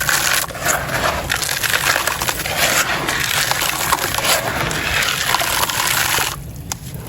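Clumps of gritty sand and stones crunching and crumbling into a bowl of water, a dense crackle of many small grainy breaks with some watery sound mixed in. It goes quieter a little after six seconds in.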